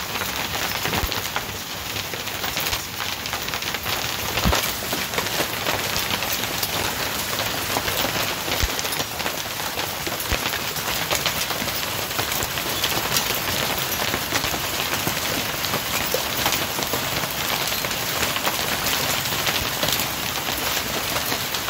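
Hailstorm: a dense, steady patter of hailstones and rain striking the lawn and garden, thick with sharp ticks of single stones.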